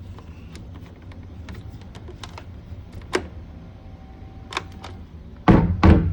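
Plastic clicks from the trigger and safety switch of a dead Greenworks Pro 80V cordless leaf blower being pressed, with no motor or fan spinning up: the blower will not start despite a charged battery. Near the end come several loud thumps from handling the unit.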